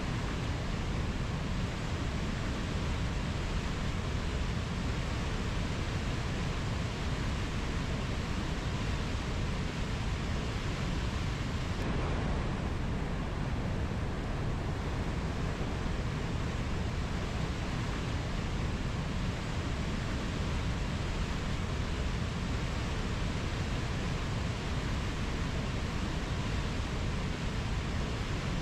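Rainforest ambience: a steady, even rushing noise, heaviest in the low end, with no bird or insect calls standing out.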